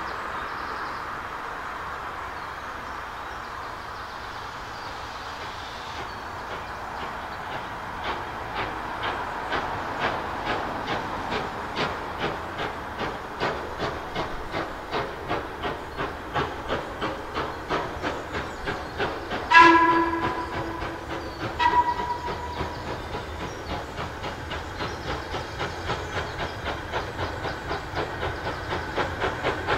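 Steam tank locomotive working towards the listener: a steady hiss of steam, then regular exhaust beats that grow louder as it approaches. Two blasts on the steam whistle about two-thirds of the way through, the first one loudest, the second shorter.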